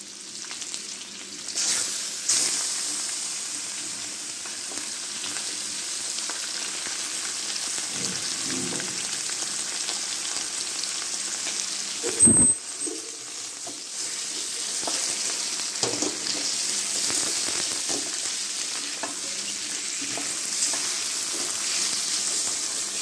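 Chicken pieces sizzling in hot butter with onions and garlic as they sear in a hammered steel wok, stirred with a spatula that scrapes and knocks against the pan. There is one sharp clank about halfway through.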